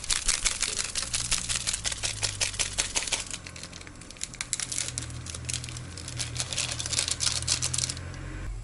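Instant-ramen powder seasoning sachet being shaken and tapped empty over a pot: a fast crinkling, rattling patter of plastic film and powder. It comes in two runs with a short lull about three seconds in, and stops abruptly near the end.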